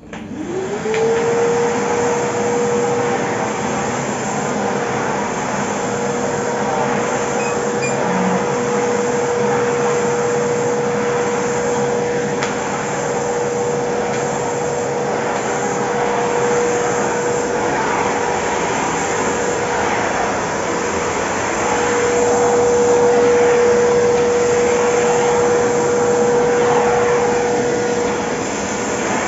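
Kärcher WD3 wet and dry vacuum cleaner switched on, its motor whining up to speed within about a second, then running steadily with a high hum over the rush of air. It gets a little louder about two-thirds of the way through.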